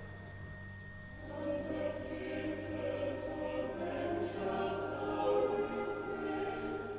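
Choir singing a slow chant in long held notes, with a steady low hum underneath.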